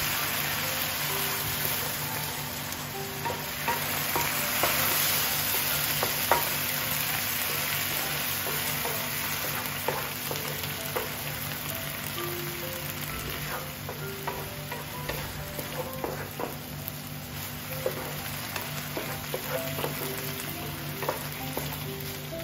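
Food frying in oil in a nonstick pan: a steady sizzle, with scattered clicks and scrapes from a wooden spatula stirring it.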